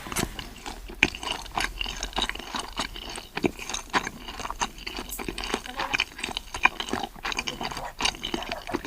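Close-up eating sounds: seafood being chewed and crunched, with many quick, irregular clicks and smacks.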